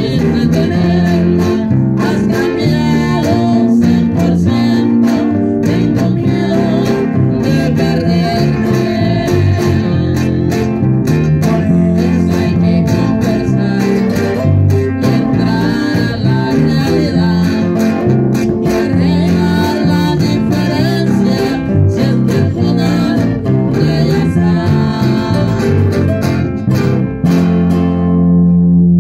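A live band of two acoustic guitars and an electric bass through an amplifier, playing a strummed, rhythmic song. It ends on a held chord near the end.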